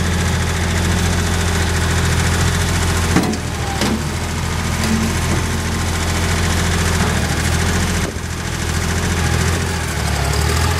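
Yanmar YM1510D tractor's diesel engine running steadily, its note shifting about three seconds in and again near the end.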